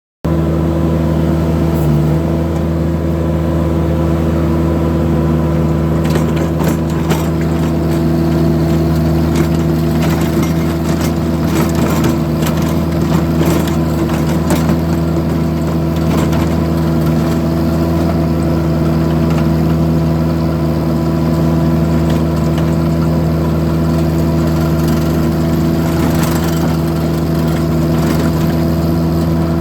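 Engine of a Vermeer compact loader running steadily at an even speed, with scattered clicks and rattles in the middle stretch.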